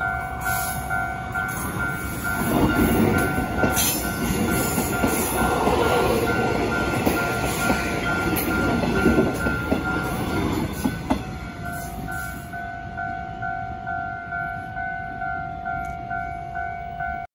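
Electronic level-crossing bell ringing in a fast, even ding-ding pattern while a Taiwan Railway EMU500 electric commuter train passes over the crossing. For several seconds in the middle its wheels rumble and clatter over the rails, louder than the bell, then the passing noise stops suddenly and the bell carries on alone.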